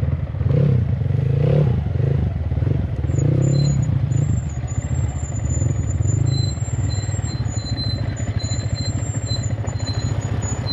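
Motorcycle engine running steadily while riding, with a thin high whine joining in about three seconds in.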